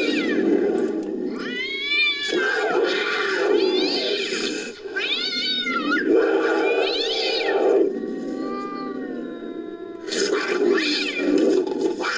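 Designed creature cries made from layered wild-cat and house-cat recordings: a string of about six meowing, caterwauling calls that rise and fall in pitch, one of them longer and lower near the middle, over a steady noisy low layer.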